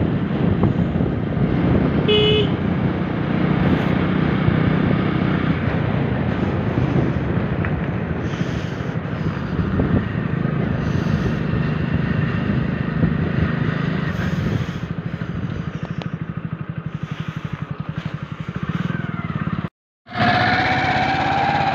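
Motorcycle engine running steadily while riding, with wind noise on the microphone and a short horn beep about two seconds in. Near the end the sound cuts out abruptly.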